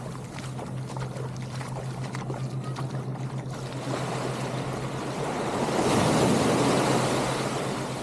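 Small waves breaking and washing up a sandy beach, with one wash swelling loudest about six seconds in. A steady low hum runs underneath.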